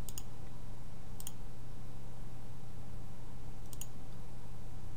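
A few sparse clicks of a computer mouse, one near the start, one about a second in and a quick pair near four seconds, over a steady low hum.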